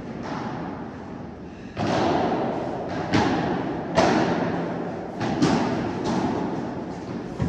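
Padel ball struck by rackets and bouncing on the court during a rally: sharp pops about once a second, each ringing on in a large hall, beginning after a soft bounce before the serve.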